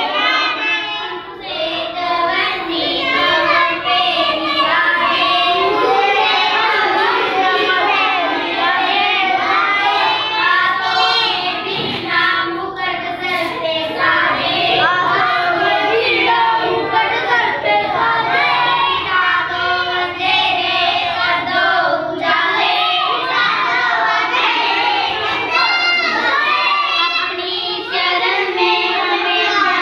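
A group of young children singing a prayer together in unison, without a break.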